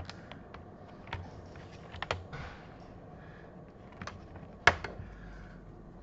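Plastic bottom cover of a Lenovo V130-15 laptop being prised off, its clips snapping loose in a scattered series of sharp clicks, the loudest one late on.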